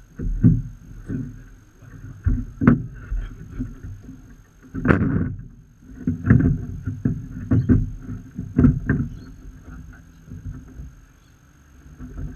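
Irregular knocks and thumps on wooden dock boards as a metal-framed crab trap is handled and shifted about, with a heavier clatter about five seconds in.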